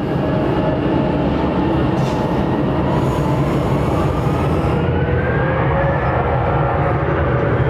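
Jet airliner engines at takeoff thrust: a loud, steady rumble with a whine that slowly rises in pitch.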